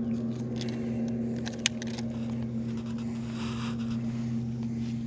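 Steady motor hum on a bass boat, with a few light clicks and one sharp click about a second and a half in.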